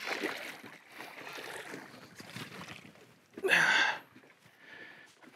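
A hooked bass splashing and thrashing at the water's surface beside the boat as it is reeled in, with one short, louder burst about three and a half seconds in as it comes aboard.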